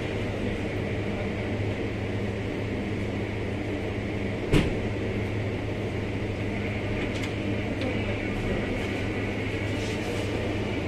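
Hand work with a small metal tool at a car door latch: one sharp click about halfway through and a few faint ticks, over a steady low hum.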